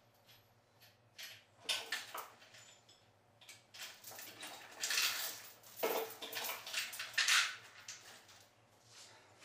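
Metal lifting chain clinking and rattling in several short bursts as it is handled and unhooked from an engine block hanging from a shop engine hoist.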